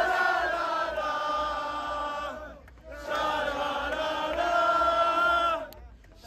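Crowd of soccer supporters chanting together in unison. The chant comes as two long, held phrases with a short break between them.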